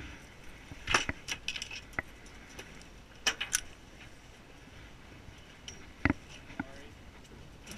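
Fishing tackle clicking and clinking at the boat's metal rail as mackerel are jigged and swung aboard: scattered sharp metallic clinks, loudest about a second in, two more a little after three seconds, and a duller knock around six seconds.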